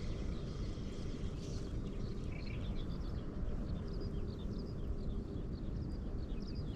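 Small birds chirping over and over, short quick calls, above a steady low rumble.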